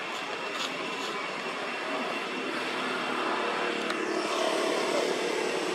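Steady background noise with the faint hum of a distant vehicle engine, growing a little louder past the middle.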